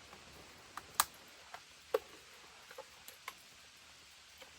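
A few light, irregular clicks and taps from handling a Husqvarna 55 chainsaw as it is readied to start; the engine is not yet running.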